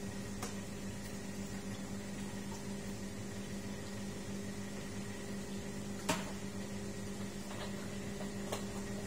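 Ferratti Ferro FCM 3605 espresso machine's pump humming steadily while a shot is being pulled, with a few light clicks, the sharpest about six seconds in.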